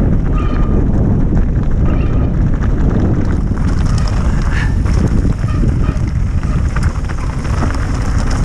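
Loud, steady wind noise buffeting the microphone, a dense low rumble.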